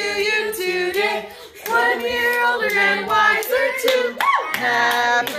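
Hands clapping along to singing voices, with a short high whoop rising and falling about four seconds in.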